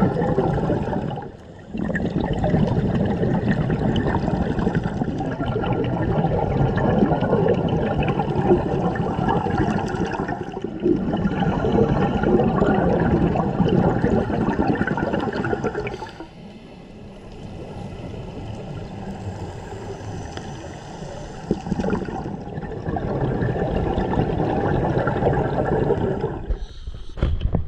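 Scuba regulator exhaust bubbling underwater as divers breathe out: long stretches of gurgling, rushing bubbles broken by short pauses, with a quieter stretch of several seconds past the middle.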